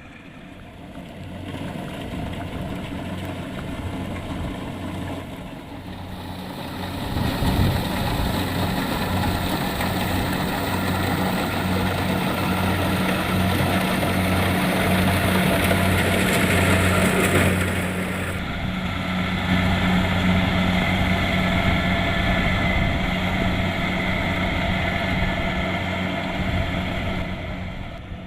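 Kubota DC-70 Plus combine harvester's diesel engine running steadily in a rice field. It grows louder about seven seconds in, with a higher hiss of working machinery on top until about eighteen seconds in.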